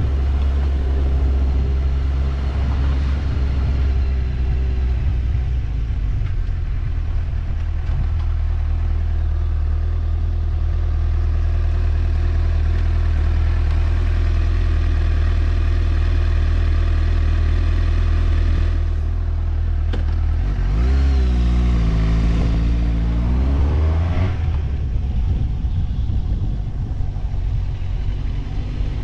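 Vehicle engine running steadily under way, with road noise. About twenty-one seconds in, the engine note drops and then climbs again over the next few seconds as it picks up speed.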